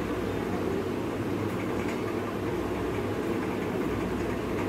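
Steady low mechanical hum, unchanging throughout, like a fan or appliance running in the room.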